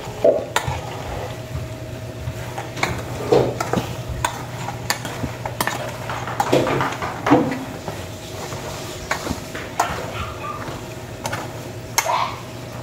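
Raw peanuts frying in shallow oil in a deep pot while being stirred with a metal slotted spoon. A steady sizzle runs under frequent clicks and scrapes as the spoon knocks the pot and rattles through the nuts.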